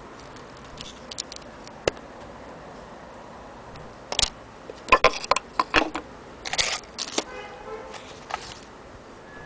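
Wooden accessory-box lid on a Singer 66K sewing machine's base being handled and opened: one sharp click, then a cluster of wooden knocks and clicks in the middle, followed by a few lighter taps near the end.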